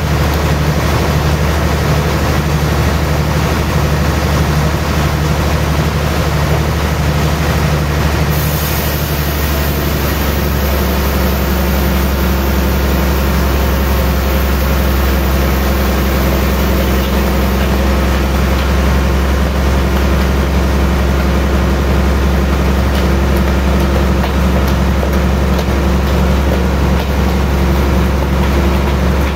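Large sawmill band saw running steadily, its drive giving a loud, even, low hum. A faint high hiss joins about eight seconds in and fades out again.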